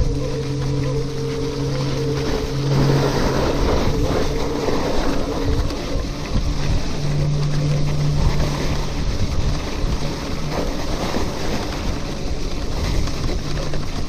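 Riding a RadMini electric bicycle: wind buffeting the chest-mounted microphone along with rolling noise. A low hum with overtones comes and goes, heard at the start, around the middle and near the end.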